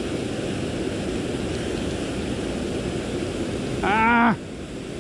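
Steady rushing noise of flowing river water below a weir. A man's short, loud exclamation "Ah!" cuts in about four seconds in.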